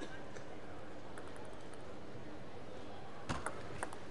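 Table tennis rally: the ball clicks sharply off bats and table, four quick clicks in about the last second, over a steady hum of the hall.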